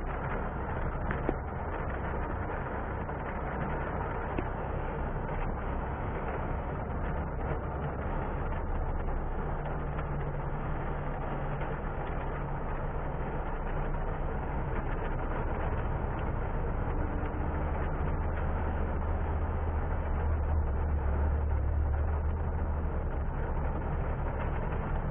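Car driving on a rain-wet road: a steady engine and tyre rumble under a constant hiss, the rumble growing a little stronger past the middle.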